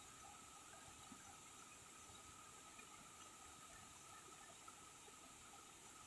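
Faint, steady rushing hiss of a small waterfall pouring over rocks into a pool, very quiet throughout, with a thin steady high tone under it.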